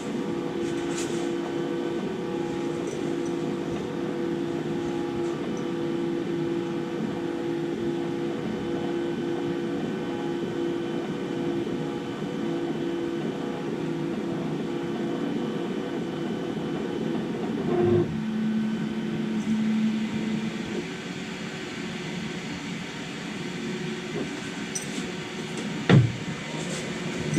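Qidi X-Max 3D printer printing: its stepper motors whine in steady tones over fan noise, the pitch shifting as the print moves change a little past halfway. A sharp click sounds near the end.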